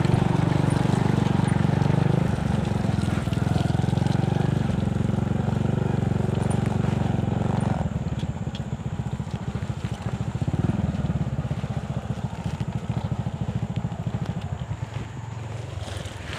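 Small motorcycle engine running as it is ridden over a rough dirt road. The engine is loud and steady at first, then becomes quieter about halfway through and fades further near the end.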